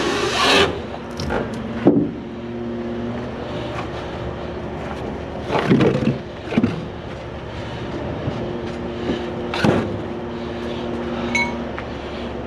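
Diesel truck engine idling steadily, with a handful of short, sharp metallic knocks and clanks coming and going over it.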